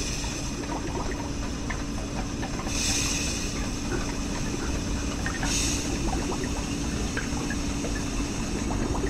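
Animated machinery sound effects: a steady low mechanical rumble and hum with scattered small clicks, broken by two short hisses of steam about three and five and a half seconds in.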